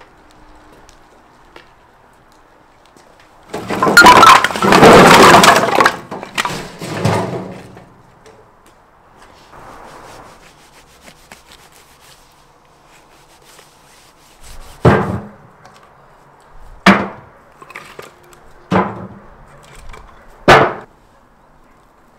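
Split firewood logs tumbling out of a wheelbarrow in a loud clattering crash lasting a few seconds, followed later by four sharp knocks about two seconds apart.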